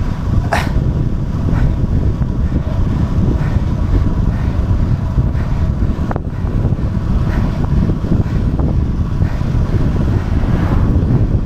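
Strong wind buffeting the microphone during a fast downhill bicycle ride, a dense steady rumble, with a sharp click about half a second in and another about six seconds in.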